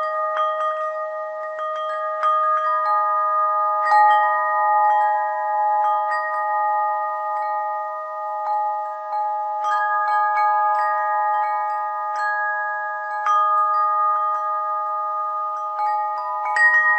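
Chime bells ringing: clear metal tones struck at irregular moments, about one a second, each ringing on long so that several overlap at once.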